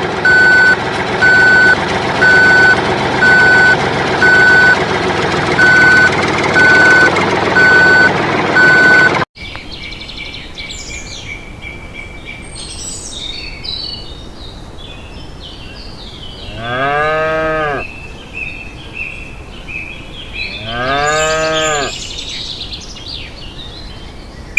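A large vehicle's engine running with a reversing beeper sounding about once a second, cutting off abruptly about nine seconds in. Then birds chirping and a cow mooing twice, each moo rising and falling in pitch.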